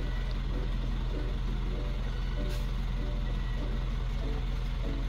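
A steady low mechanical drone, like an engine running, with faint short tones above it.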